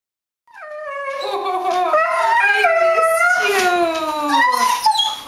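Dogs whining and howling excitedly at their owner's return, starting about half a second in as long, wavering, overlapping cries that slide up and down in pitch.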